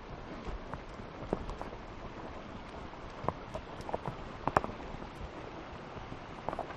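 Horse walking on a trail: scattered hoof clops and sharp knocks at an uneven pace over a steady hiss, the loudest knock about four and a half seconds in.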